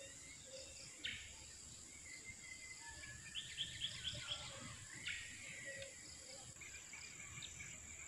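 Outdoor countryside ambience: insects droning steadily at a high pitch, with birds calling now and then, including a quick run of about six chirps a little before the middle.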